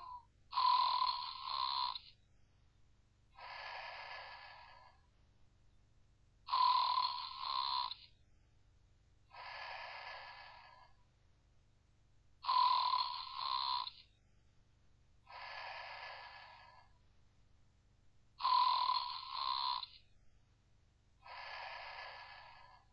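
Snoring: a louder snore with a whistling tone alternates with a softer, breathier one. The pair repeats regularly, about every six seconds.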